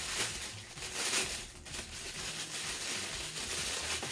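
Clear plastic wrapping crinkling and rustling as a silicone mold inside it is handled and unwrapped, with louder rustles near the start and about a second in.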